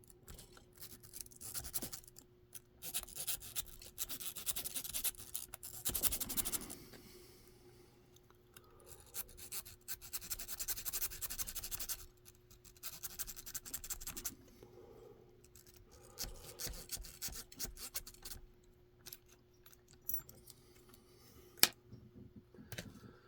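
A zip tie scraping and raking against the pins inside a lock's keyway while tension is held on the lock, in several spells of fast, scratchy clicking with pauses between. One sharp click sounds near the end.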